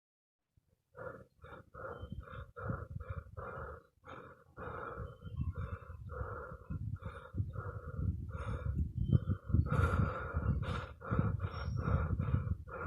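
Rapid rhythmic panting, about three breaths a second. It starts about a second in and grows louder in the second half.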